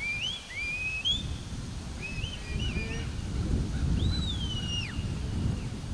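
Handler's whistle commands to a herding dog: two rising whistles near the start, a few short chirps around the middle, then one long whistle that rises and falls. Wind rumbles on the microphone throughout.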